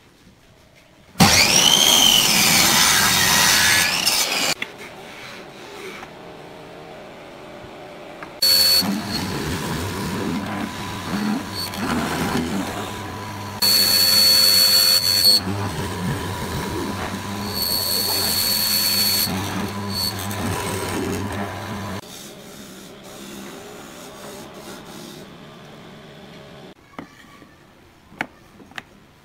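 A miter saw's motor spins up and its blade cuts through a wooden board, about a second in, for some three seconds. Then a benchtop hollow-chisel mortiser runs with a steady hum, with three louder plunges of the chisel into the wood, each carrying a high whine, before its motor stops a few seconds before the end.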